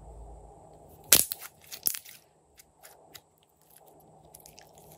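Glossy purple slime being squeezed and folded by hand, giving two loud sharp crackling pops about a second apart, then softer scattered clicks and pops.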